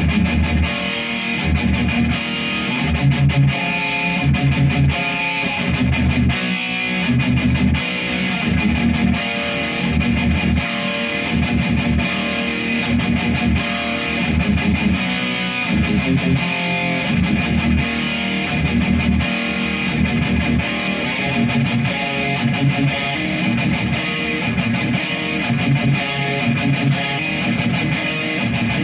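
Electric guitar played through a Marshall amp with an HM2-style chainsaw EQ pedal, a heavily distorted, bright, buzzing old-school metal tone. Rhythmic riffing with short, regular stops.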